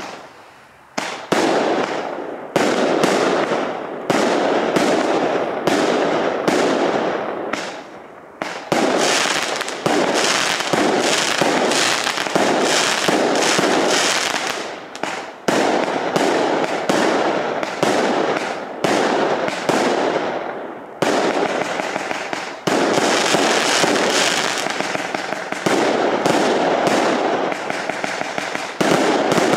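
Triplex Graffiti Vibes 49-shot 20 mm F2 firework cake firing: a fast series of shots, each a sharp report followed by the crackle of bursting stars that dies away as the next shot comes.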